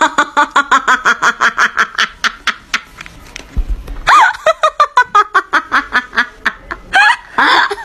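Hard, honking laughter in rapid rhythmic bursts, about six or seven a second. It breaks off about three seconds in and starts again a second later.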